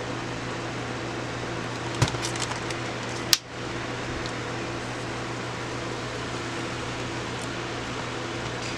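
Steady hum of background room noise, broken by a short run of small clicks about two seconds in and one sharp click a little after three seconds.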